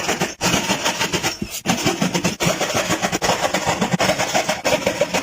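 A motor-driven machine running with a rough, uneven noise that breaks off briefly about three times.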